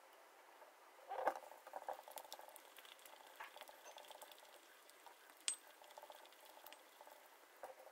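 Wooden pestle knocking and grinding in a glazed ceramic mortar, working olive oil into mashed garlic a little at a time to emulsify allioli. After a quiet first second it starts with a sharp knock, then goes on as faint irregular taps and scrapes, with another sharp click partway through.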